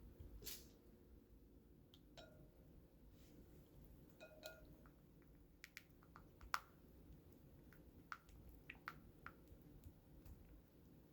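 Near silence: room tone with scattered faint clicks and small taps, the sharpest about six and a half seconds in.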